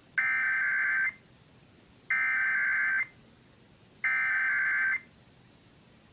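Emergency Alert System SAME header: three identical bursts of rapid two-tone digital data warble, each just under a second long and about a second apart, the coded opening of a required weekly test.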